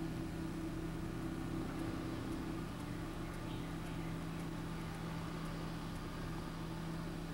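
Riding lawnmower engine running steadily at a distance, a constant hum. Its tone shifts slightly a little under three seconds in.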